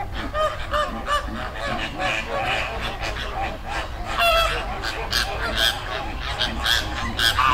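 A flock of American flamingos calling: many goose-like honks overlapping in a dense, continuous chatter, with a few louder calls standing out about four seconds in and near the end, over a steady low rumble.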